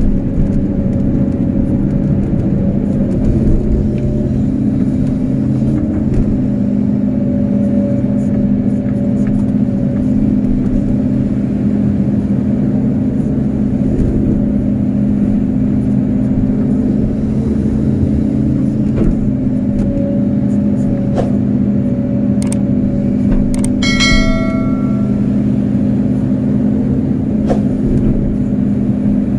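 Kobelco SK250-8 excavator's diesel engine running steadily under load while the bucket digs wet sand and mud. A brief high ringing tone sounds once, about five seconds before the end.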